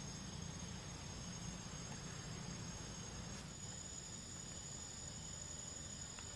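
Insects droning, one steady high-pitched tone that steps slightly in pitch about halfway through, over faint outdoor background noise.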